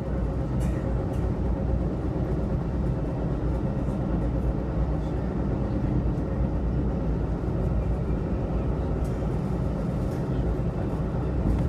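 Metra commuter train running at speed, heard from inside the passenger car as a steady low rumble.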